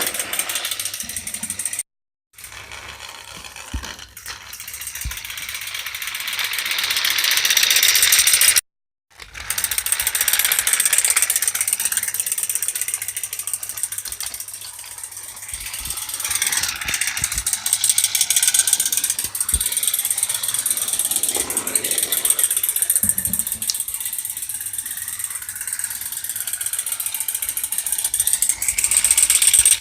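Battery-powered TrackMaster toy trains running on plastic track: a steady motor whirr with fast gear clicking, which grows louder over a few seconds as a train comes closer. It cuts out twice briefly.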